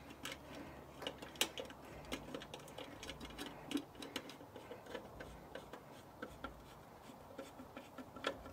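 Screwdriver turning a small screw into a motorcycle headlight's chrome trim ring, making faint, uneven clicks and ticks, a few a second.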